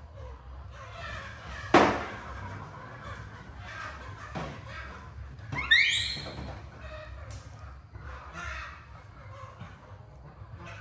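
A sharp thump about two seconds in, then a short, rising, squealing animal call about six seconds in.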